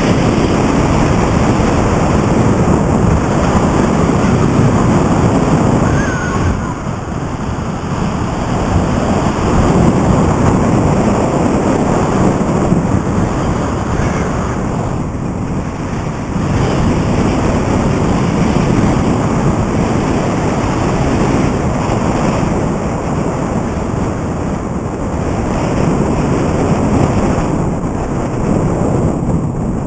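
Wind rushing over the microphone of a powered paraglider gliding with its engine stopped after an engine failure; no motor is heard. The rush eases off near the end as the glider comes down to land.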